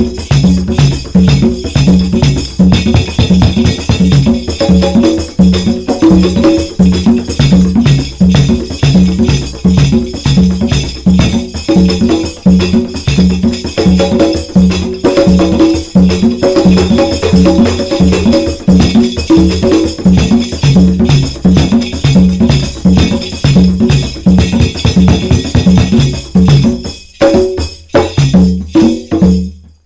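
Fast, steady hand-played percussion music: pitched drum strokes with a rattling jingle over them, and a steady low hum underneath.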